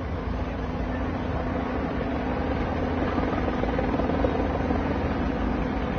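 Helicopter hovering overhead: a steady low rotor rumble with a faint steady hum above it.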